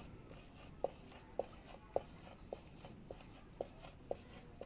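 Marker pen drawing small circles on a white chart, faint short squeaks about twice a second, one for each circle.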